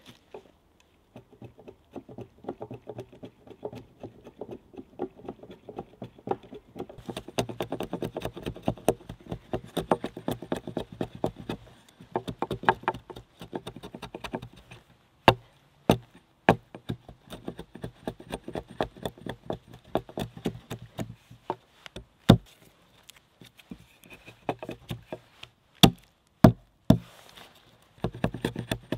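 Small axe cutting a notch into a log: a fast run of short light chopping and paring strokes of the blade into the wood, then a handful of sharper single chops in the second half.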